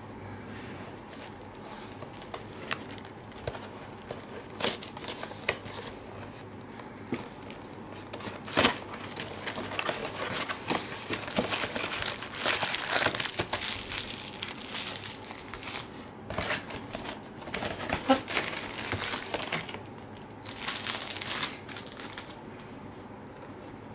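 Hands handling a cardboard photo-paper box and plastic packaging: irregular crinkling of plastic with light knocks and taps of cardboard, busiest in the middle and again near the end.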